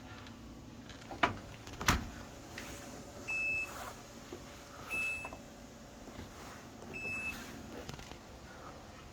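Two sharp clicks, then a top-load washing machine's control panel beeping three times: short high beeps of about half a second each, spaced a second and a half to two seconds apart.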